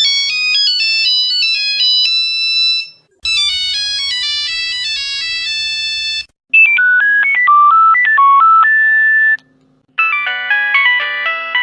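Nokia phone ringtone melodies played one after another: four short phrases of quick electronic notes, each in a different sound, with brief pauses between them. The later phrases are lower in pitch and carry a low steady hum underneath.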